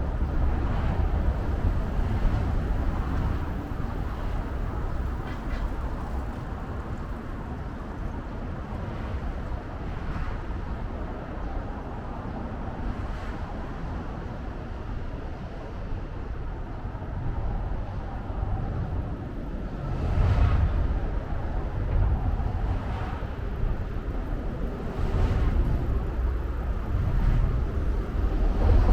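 Urban outdoor ambience dominated by a steady low rumble of road traffic, swelling twice, with a few faint knocks now and then.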